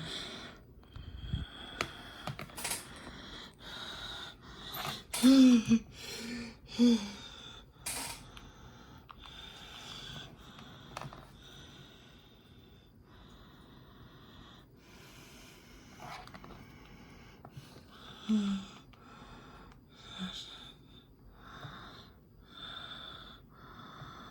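A person breathing heavily close to the microphone, short noisy breaths about once a second, with a few brief voiced grunts.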